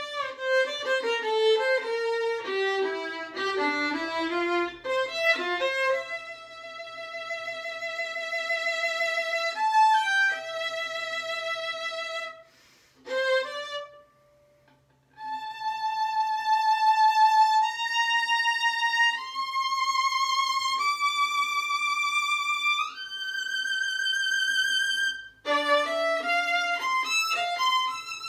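Solo violin played with the bow: a run of quick notes, then long held notes. A short pause comes about halfway, after which the held notes climb step by step and quick notes return near the end.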